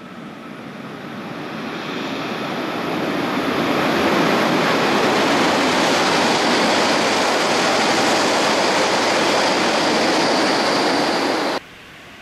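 E2 series Shinkansen passing through the station at high speed: a rushing roar that builds over the first four seconds and then holds steady and loud. Near the end it cuts off abruptly, giving way to a much quieter steady hiss.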